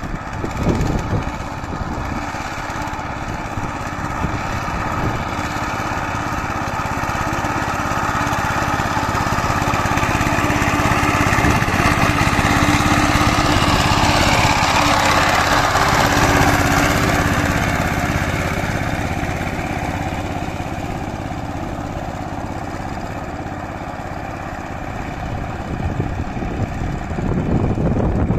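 Two-wheel power tiller's diesel engine running steadily under load as its rotary blades churn a flooded rice paddy. It grows louder as the tiller passes close by, about halfway through, then fades again.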